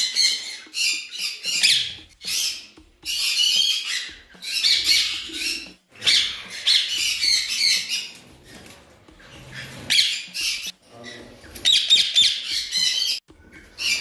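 Indian ringneck parakeets screeching: loud, harsh squawks over and over, each up to about a second long, with short gaps between.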